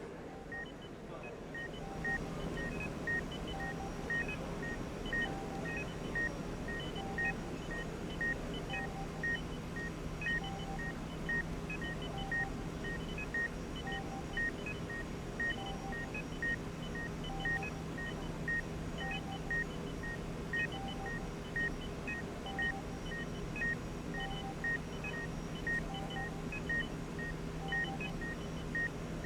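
Hospital medical equipment beeping: a short high beep repeating steadily more than once a second, overlapped by a lower beep every couple of seconds and higher beeps in small groups. A steady low equipment hum comes in about two seconds in.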